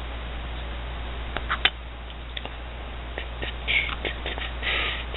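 Small plastic model-kit parts clicking and rustling as they are handled and fitted together, with a sharp click about one and a half seconds in, over a steady low hum.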